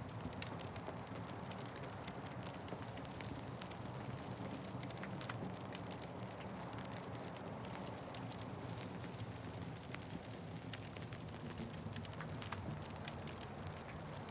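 Wood fire crackling, with frequent small sharp pops and snaps over a steady low rumble.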